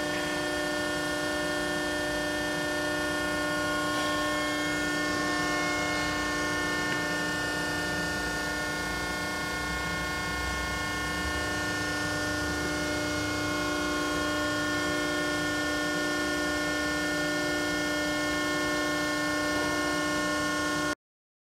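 Steady hum of a 135-ton Cincinnati CNC hydraulic press brake's hydraulic pump running idle, with several held tones over a low rumble. It cuts off suddenly near the end.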